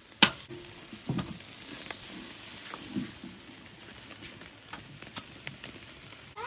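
Chicken, sausages and corn sizzling on the grate of a charcoal kettle grill: a steady hiss with scattered crackles and pops, and one sharp click just after the start that is the loudest sound.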